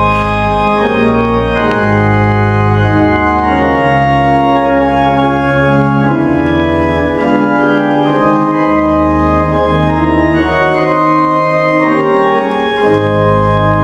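Church organ playing slow, sustained chords over deep bass pedal notes, the harmony changing every second or two.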